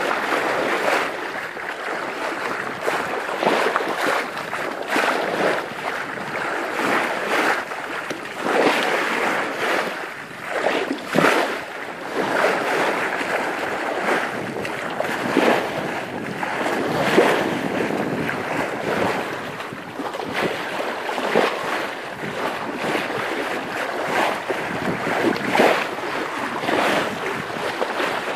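Bow wave of a sailing ketch rushing and splashing along the hull in uneven surges, with wind buffeting the microphone.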